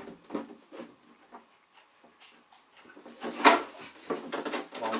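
Thin board panel of a games table being pressed, shifted and knocked against other parts on a carpeted floor. It makes a series of short knocks and rustles, with the loudest clatter a little over three seconds in and a quick cluster of knocks after it.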